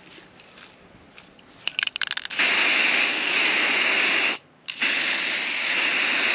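Aerosol spray-paint can spraying black paint in two long hissing bursts with a short break between them, after a quick run of clicks.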